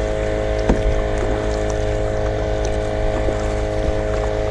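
Outboard motor of a small boat passing at a slow, steady speed, a constant droning hum over a low rumble. The owner of the voice guesses it at 15 or 20 horsepower. Faint light splashes from the kayak paddle are heard now and then.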